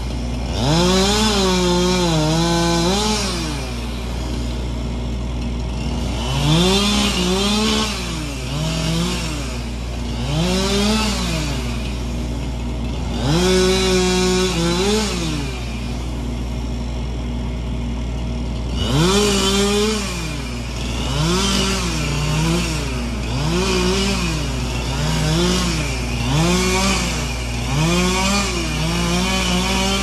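Chainsaw revving up and dropping back to idle over and over, each rev lasting one to two seconds. The longer revs dip in pitch in the middle, as a saw does when it is cutting wood. There are short stretches of idling between the runs of revs.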